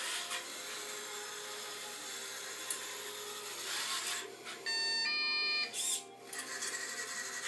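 Small wheeled hobby robot's drive motors and gearing running as it rolls across a wood floor, a steady whirring, rubbing noise with a single click partway through. About five seconds in, two short electronic tones sound one after the other.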